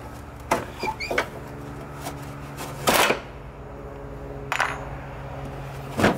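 Plastic clicks and clattering knocks from a truck headlight housing and its bulb socket being handled and worked loose: a few light clicks about a second in, then louder knocks around three seconds, four and a half seconds and six seconds.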